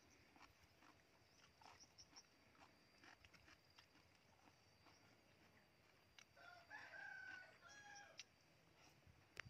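A rooster crows once, faintly, for about two seconds in the second half, over a steady faint high-pitched whine and a few soft ticks.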